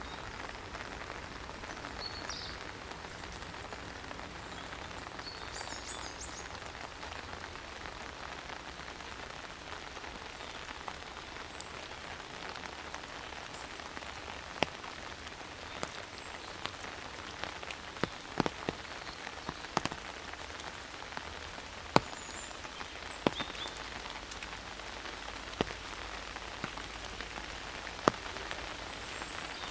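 Steady rain falling among forest trees, an even hiss of drops. From about halfway on, sharp single taps of heavier drops land close by. A few faint high chirps come early and again near the end.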